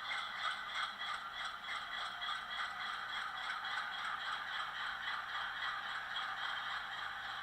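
Sound decoder in an HO-scale Atlas GE Dash 8-40CW model locomotive playing its recorded GE diesel prime mover running, a steady, even chug of about four beats a second. It comes through the model's small onboard speaker, so it sounds thin and rattly, with no bass.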